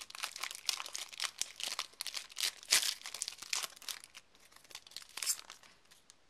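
Foil wrapper of an Upper Deck First Edition baseball card pack crinkling and tearing as it is opened, a rapid crackle that thins out about five and a half seconds in.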